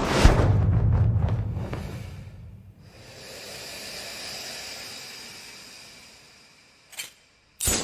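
Anime sound effect: a loud rushing whoosh over a low rumble that fades away over about two and a half seconds, then a softer hiss with a faint high ring that slowly dies out, and two short sharp bursts near the end.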